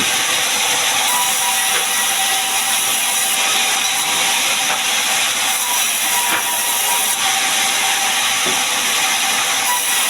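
Large sawmill saw cutting a gmelina log into planks: a steady, loud hiss of the blade through the wood, with a faint thin whine.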